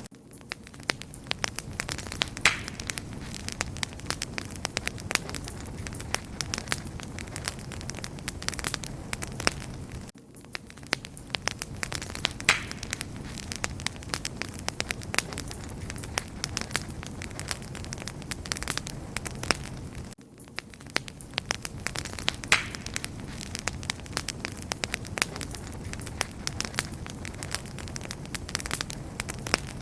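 Wood fire crackling steadily: many sharp pops and snaps over a low, steady rumble of flame. The same short recording repeats about every ten seconds, with a brief dip in level at each join.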